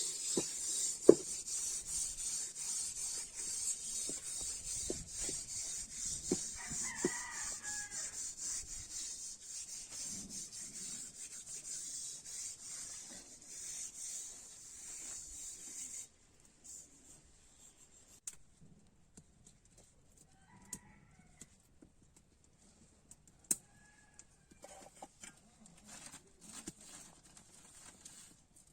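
Steady hiss with quick rhythmic rubbing or scraping strokes, which cuts off suddenly about halfway through, leaving a quiet background with scattered clicks. Chickens cluck briefly a few times.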